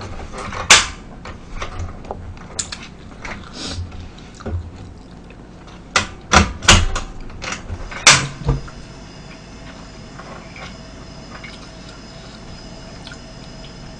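Sharp clicks and knocks of tableware and other objects handled on a table, several close together about six to eight seconds in, then only a faint steady hum.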